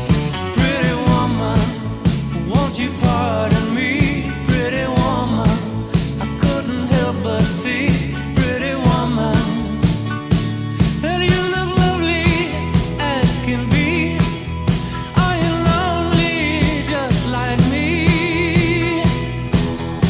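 Rock music with a steady drumbeat and guitar.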